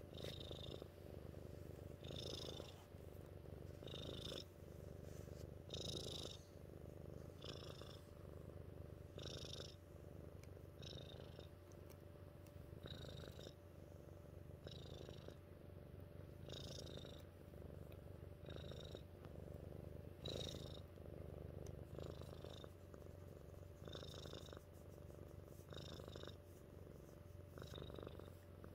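Tuxedo cat purring steadily while being scratched on the head. The purr swells and eases in a regular cycle about every two seconds.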